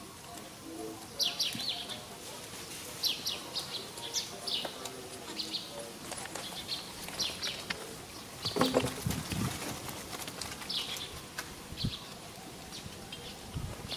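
Small birds chirping: short high notes in clusters of two or three, repeating every second or so. A louder rustle and thump comes about nine seconds in.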